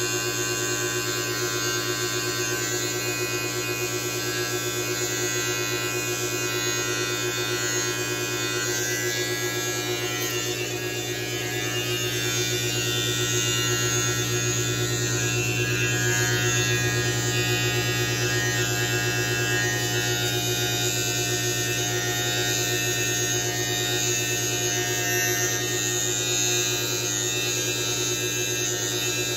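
Electric T-blade hair trimmer buzzing steadily as it is run along the beard, growing a little louder partway through.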